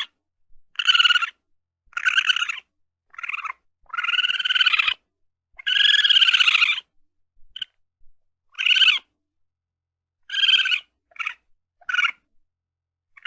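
Raccoon calling: a series of about ten short, high-pitched cries with gaps between them. The two longest, near the middle, rise and fall in pitch.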